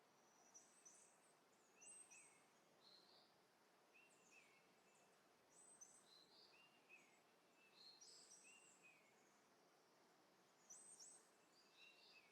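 Near silence, with faint, high, bird-like chirps recurring every second or so.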